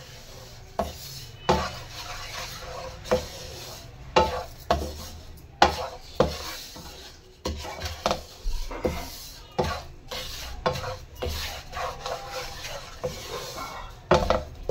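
A wooden spatula stirs and scrapes a crumbly mix of ghee-roasted gram flour and sugar around a non-stick frying pan. Irregular sharp knocks come where the spatula strikes the pan.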